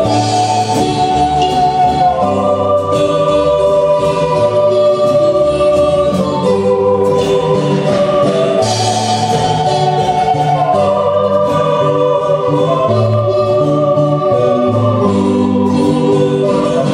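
Live Guatemalan marimba band music played loud: a melody of held, stepping notes over bass notes, with a steady beat of cymbal ticks.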